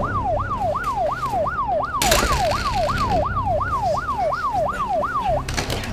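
Police car siren on a fast yelp, its pitch swinging up and down about three times a second, cutting off near the end. A sudden burst of noise comes about two seconds in.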